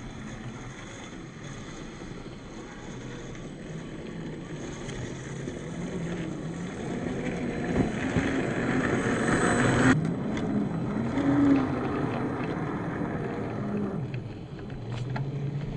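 Traxxas TRX4 RC crawler driving off-road: the 550 brushed motor and gearbox whine rising and falling with the throttle. A rushing noise over it builds and cuts off sharply about ten seconds in.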